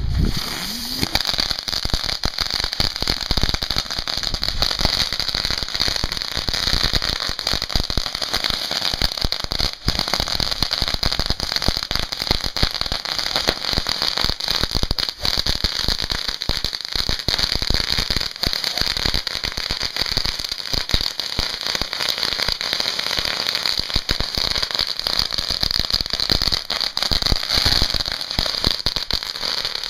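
Fireworks finale: many ground fireworks going off together, a dense, unbroken crackling of pops over a steady hiss from sparking fountains.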